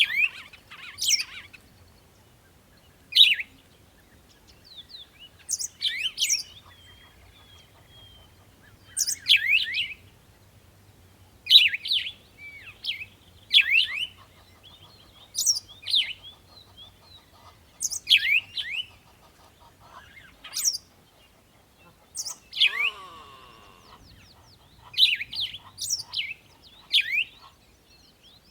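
A songbird calling in short, sharp phrases about every two seconds, each a quick run of high chirps that sweep steeply downward in pitch. Late on, a briefer, lower warbling call comes in once.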